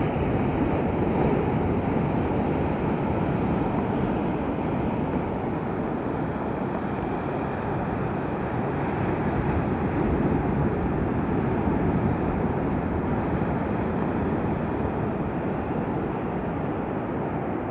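Sea surf washing onto a beach: a steady roar of breaking waves that rises and falls gently over several seconds.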